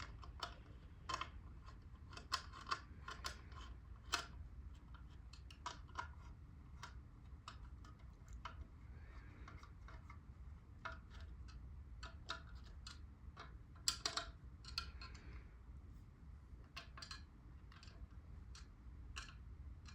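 Irregular light clicks and clinks of small parts and tools being handled during hands-on assembly, a few louder ones scattered through, over a faint steady low hum.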